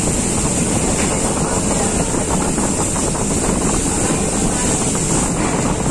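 Steady din of factory machinery on a shop floor, with a constant high hiss and a faint steady tone running through it.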